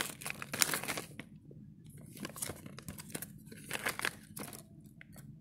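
A clear plastic parts bag holding a set of RC car shock absorbers crinkling and rustling as it is handled, in several irregular bursts.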